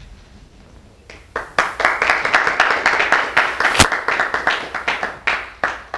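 Audience applauding. It starts about a second in, keeps up densely for several seconds, then thins to a few scattered claps near the end.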